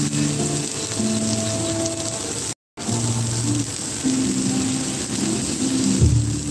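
Breakfast sausage patties and links sizzling on an electric griddle, a steady hiss, with background music playing over it. The sound cuts out completely for a moment about two and a half seconds in.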